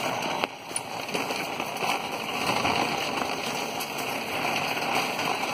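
A shopping cart rolling fast across a hard store floor: its wheels and wire basket give a steady rattling clatter.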